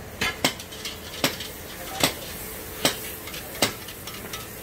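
Long metal frying spoon clinking against the side of an iron kadai as a bhatura deep-fries. Two quick strikes come near the start, then one about every 0.8 seconds, over the steady sizzle of hot oil.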